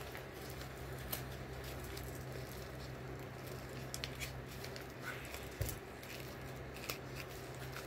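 Quiet rustling, crinkling and tearing of a mailing envelope being handled and pulled open, a few sharper crinkles about a second, three, four, five and a half and seven seconds in, over a steady low hum.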